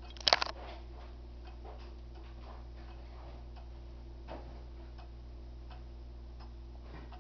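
Ansonia Regulator 'A' long-drop pendulum wall clock ticking steadily while its minute hand is turned by hand. A brief loud double knock comes just after the start.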